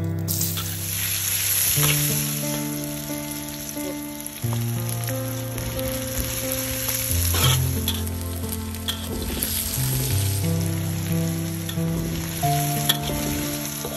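Onions and curry leaves sizzling in hot oil in a wok while a spatula stirs them, with brief louder crackles. Soft background music plays underneath.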